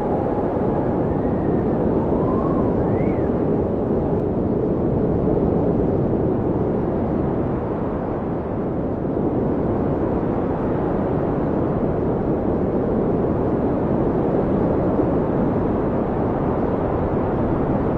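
Blizzard wind blowing hard and steadily: a dense, low rushing roar. A few brief whistling howls rise and fall in pitch during the first few seconds.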